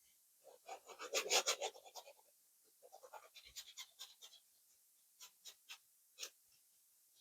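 Bristles of a large flat oil-paint brush scrubbing back and forth across a canvas, softening the paint: a quick run of scratchy strokes about a second in, another run around three to four seconds in, then a few single strokes.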